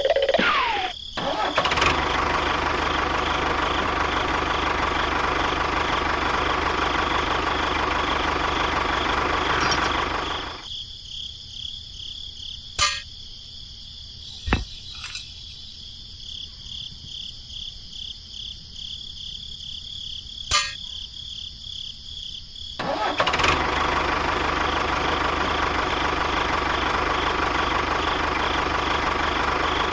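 Tractor engine running steadily, then dying away about ten seconds in. For about twelve seconds only a few sharp clicks sound, and then the engine runs steadily again from a little past twenty seconds.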